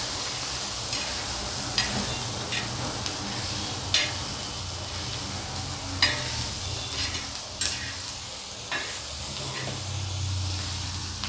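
Green chillies, peanuts and garlic sizzling in oil on an iron tawa, stirred with a metal spoon. The spoon scrapes and clicks sharply against the griddle every couple of seconds.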